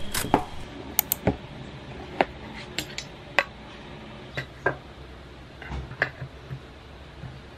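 Parts of a headphone stand, a pole and a round base, handled, knocked together and set down on a desk: about a dozen sharp, irregular clicks and knocks spread over several seconds.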